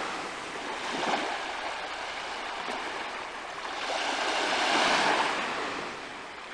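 Sea waves breaking and washing on a shore, the surf swelling about a second in and again, longer, in the second half.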